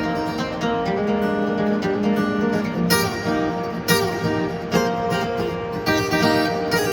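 Instrumental break in an acoustic country-style song, with acoustic guitar strumming under sustained melody notes.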